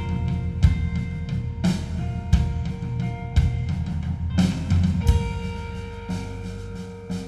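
A rock band playing live: drum kit hits with kick and snare under held instrument notes, easing off in loudness toward the end.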